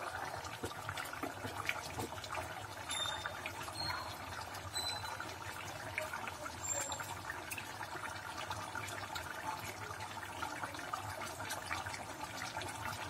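Chicken curry boiling hard in a pan over a high gas flame: a steady bubbling with many small pops.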